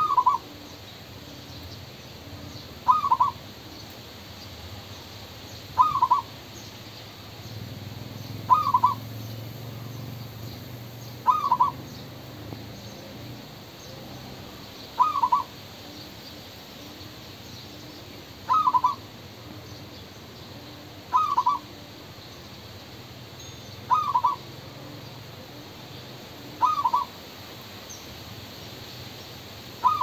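Zebra dove cooing: short calls of a few quick notes, repeated about every three seconds.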